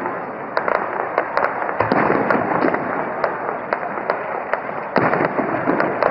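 Fireworks display: aerial shells bursting with dense, continuous crackling, with fresh bursts about two seconds in and again about five seconds in.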